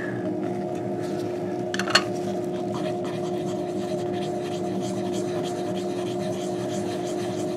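A steady machine hum, with faint scratching and rubbing from a stick stirring drops on a latex agglutination test card, and one sharp tap about two seconds in.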